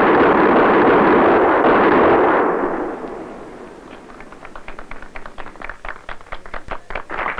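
Revolver fired six times in about two seconds, the shots running together into one loud burst that fades out. Then a series of quieter sharp taps that comes faster near the end.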